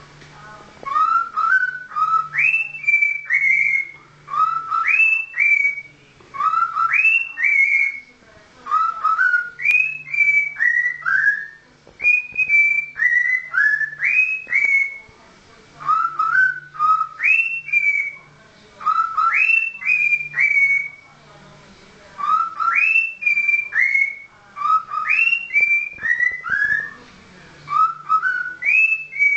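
Cockatiel whistling a learned tune: a short phrase of a few low notes, then quick upward-sliding higher notes, repeated over and over with brief pauses between phrases.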